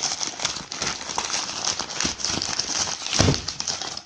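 Packaging being opened by hand: a steady crinkling and rustling with many small clicks as the box and its wrapping are handled.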